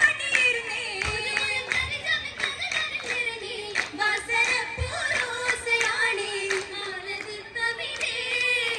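Oppana song sung by the singers through a PA system, with the dancers' sharp hand claps keeping the rhythm.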